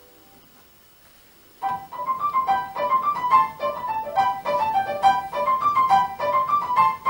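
A faint chord dies away, and then about a second and a half in a piano starts a brisk introduction of short, quickly repeated notes and chords in the middle register, leading into the next song.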